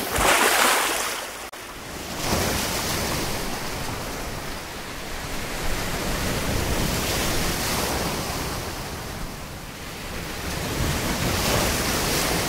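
Sea waves washing in and breaking, swelling and easing every few seconds, with wind buffeting the microphone.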